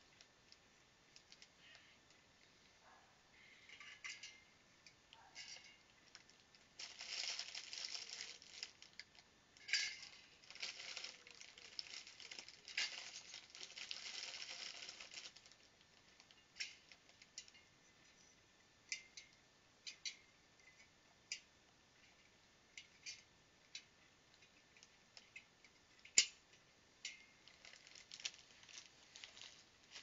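Bird seed rattling into a hanging garden bird feeder as it is filled, a dry crackly patter for several seconds, followed by scattered light clicks and taps as the feeder is handled, one sharper click about two-thirds of the way in.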